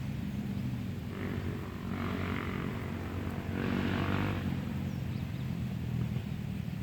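A steady low engine drone, with three short bursts of rustling noise over it.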